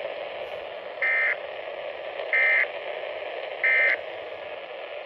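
NOAA Weather Radio SAME end-of-message data bursts: three short, identical buzzy digital bursts about 1.3 s apart over steady radio static. They mark the end of the severe thunderstorm warning broadcast.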